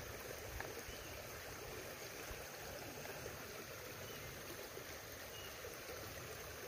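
Shallow creek water running, a faint steady rush.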